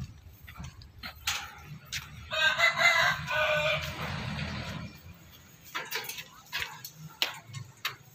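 A rooster crowing once, a long multi-part call starting a couple of seconds in and lasting about two and a half seconds. Scattered sharp knocks are heard around it.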